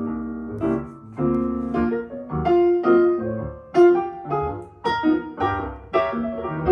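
Solo piano playing the intro of a vocal jazz-pop song, with chords and single notes struck in a relaxed rhythm. It is played back through a Fostex FE208SS-HP 8-inch full-range speaker with a T90A-SE super tweeter.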